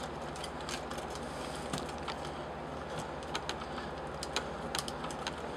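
Faint scattered clicks and light taps of a plastic Transformers figure and its rifle as the figure is handled and posed, over a steady low room hum.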